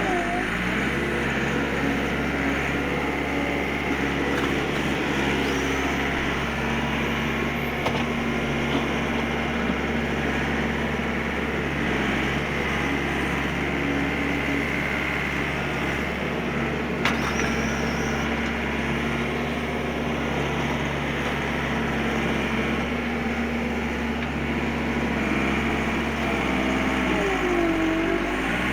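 Bobcat skid-steer loader engine running steadily, with a short click partway through and a wavering whine near the end.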